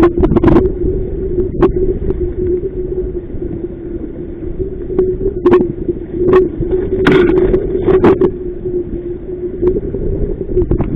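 Strong wind rumbling on the microphone aboard a small inflatable boat under sail, with a steady low hum underneath and irregular sharp slaps and splashes every second or so.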